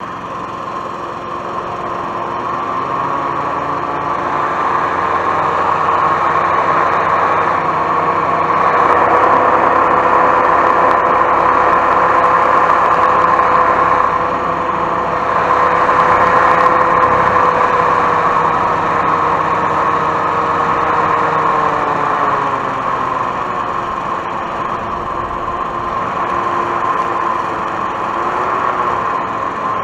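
Hoverstream Coastal Pro II hovercraft's engine and fan running steadily, growing louder about eight seconds in, with its pitch easing down slightly around twenty-two seconds in.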